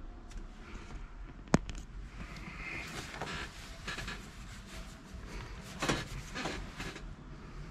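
A sharp click about a second and a half in, then scattered small knocks and rustles from handling in a bus driver's cab, over a low steady rumble.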